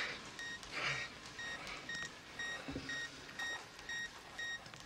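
Defibrillator charging: a short high electronic beep repeating about two and a half times a second.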